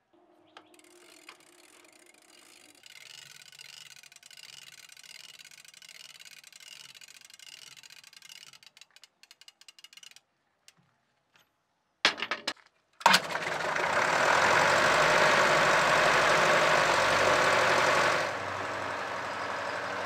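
A Workwell starter being worked on an old road roller's diesel engine: faint ratcheting clicks while the starter lever is operated, then two sharp loud knocks about twelve seconds in as the starter releases. The engine catches a second later and runs loudly with a knocking beat, dropping a little in level near the end.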